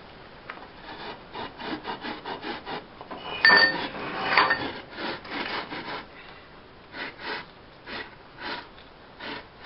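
Masonry blocks and bricks scraping against each other as a kiln's temporary arch support is worked back and forth to free it: short rasping strokes, two or three a second. About three and a half seconds in comes a louder scrape with a brief clink, and after it the strokes come more slowly.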